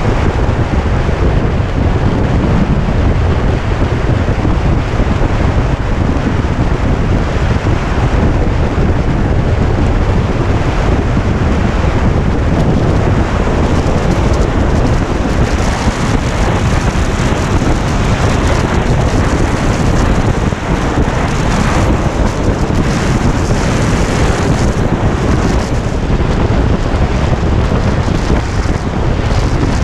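Loud, steady wind rush buffeting the microphone of a camera on a moving Kawasaki Ninja 250 motorcycle, with the bike's engine and road noise beneath it. The hiss gusts harder from about halfway on.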